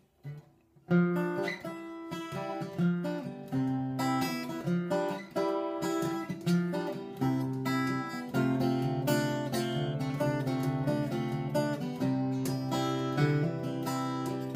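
Steel-string acoustic guitar played solo, individual notes plucked over a sustained bass line, starting about a second in.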